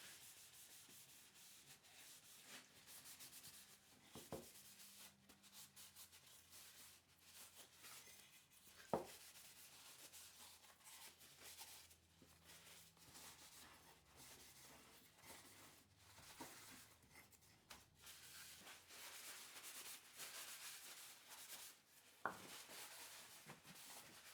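Something rubbing on wood by hand in repeated faint, scratchy strokes, with three light knocks about 4, 9 and 22 seconds in.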